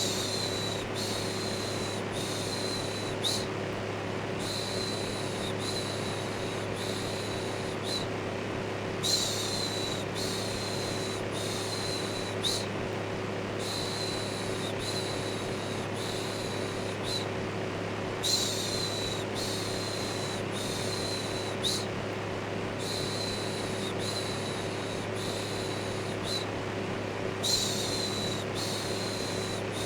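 Steady electric fan running with a low motor hum, overlaid with a repeated shushing "shhh". The shushes come in runs of several, roughly once a second, with short pauses between runs.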